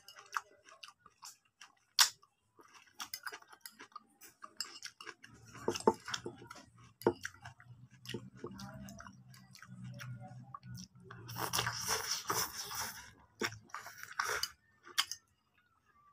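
A man eating fried instant noodles: close-up chewing and mouth sounds, with a metal fork clicking and scraping on a glass plate.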